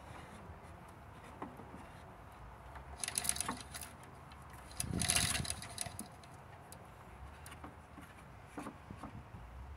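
Scattered metallic clinks and rattles as an engine hanging on a hoist chain is shifted by hand. There is a cluster of rattles about three seconds in and a louder rattle about five seconds in.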